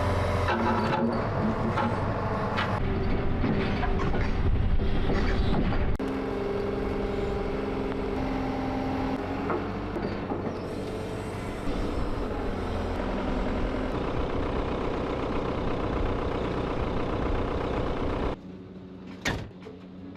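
Excavator's diesel engine running under working load, with several knocks in the first few seconds. The engine sound stops abruptly near the end.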